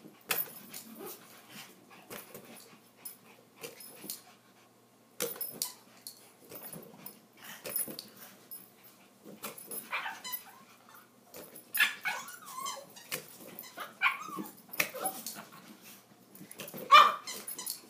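Yorkshire terriers yipping and barking in short bursts while playing, with brief taps and scuffles in between. The loudest yip comes near the end.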